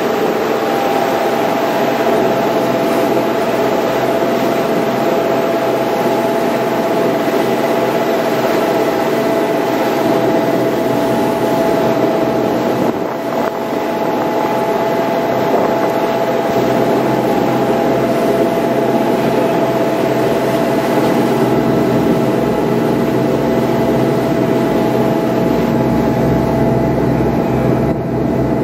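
Shuttle boat's engines running steadily under way, a constant drone with several held tones over the rush of water and wind.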